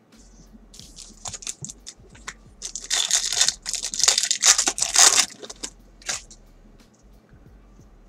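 Foil wrapper of a 2017 Bowman's Best baseball card pack being torn open and crinkled by hand. The rustling starts about a second in, is loudest around the middle and stops about six seconds in.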